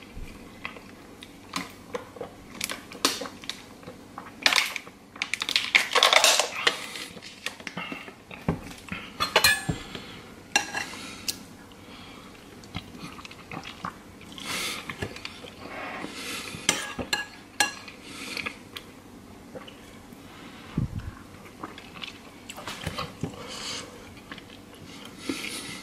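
Spoon clinking and scraping against a bowl while soup is eaten, in scattered irregular clinks. About five seconds in comes a longer, louder clattering rustle.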